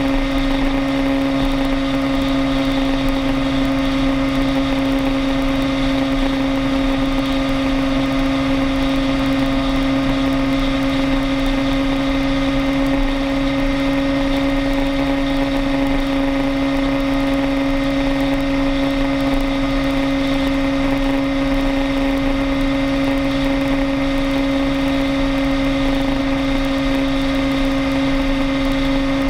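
A vehicle travelling at a steady highway speed: a constant drone that holds one pitch throughout, over steady road and wind noise.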